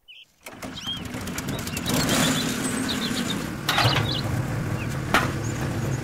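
A motor running with a steady low hum, beginning after a moment of silence. Short high chirps sound over it, and there is a sharp click about five seconds in.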